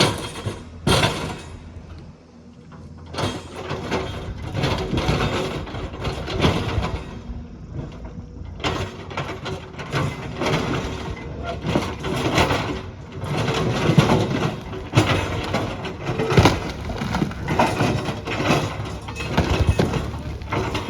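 Heavy earthmoving machine at work: an engine running steadily beneath irregular clanks, knocks and cracking.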